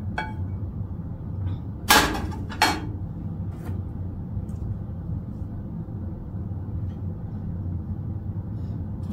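A skillet with a spatula in it set down on an electric coil burner: two sharp metal knocks about two seconds in, over a steady low hum.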